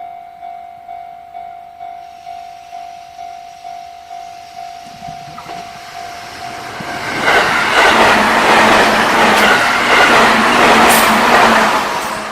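Japanese level-crossing warning bell ringing with an electronic ding about twice a second, then a JR Central electric train passing over the crossing about seven seconds in, its rumble and wheel noise drowning the bell and beginning to fade near the end.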